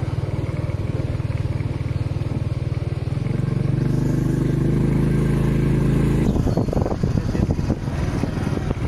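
Motorcycle engine heard from the pillion seat while riding. The engine note climbs steadily as it speeds up from about three seconds in, then gives way to a rougher rushing noise about two-thirds of the way through.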